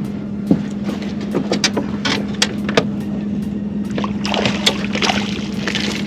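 A steady low hum from the boat, with short knocks of water against the hull. From about four seconds in, a hooked speckled trout splashes at the surface as it is reeled to the boat.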